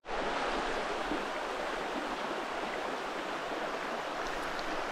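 Shallow, rocky trout river running steadily over stones and riffles.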